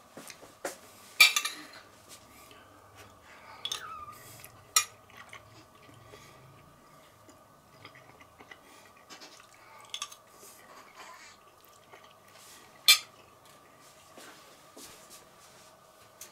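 A metal spoon clinking and scraping on a ceramic plate as food is scooped up, with the sharpest clinks about a second in, near five seconds and near thirteen seconds. A faint steady tone runs underneath.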